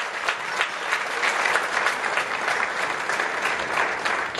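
Audience applauding: dense, steady clapping from many hands, easing off a little near the end.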